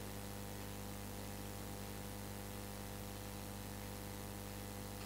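Steady electrical mains hum, a low buzz with several overtones, over a faint hiss, unchanging throughout.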